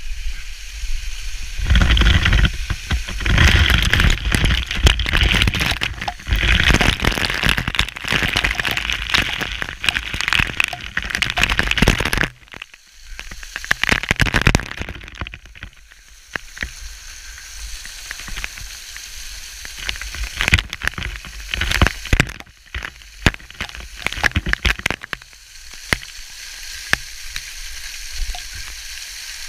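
Waterfall water pouring and spattering directly onto a body-worn camera and its microphone, a loud crackling spatter like heavy rain. Heaviest from about two seconds in until about twelve seconds, then lighter, with further bursts of spray.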